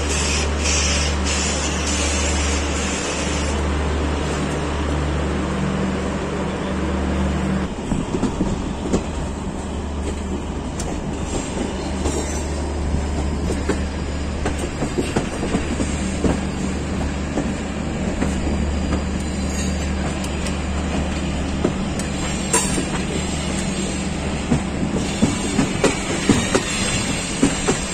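Garib Rath Express train moving along the track after pulling out of a station: a steady low hum for about the first seven seconds, then the wheels clattering and rattling over the rails with many irregular clicks.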